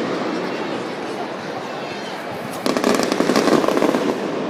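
Mascletà firecrackers: a dense run of rapid crackling bangs starts about two and a half seconds in and lasts over a second, above a steady din of crowd noise and echo.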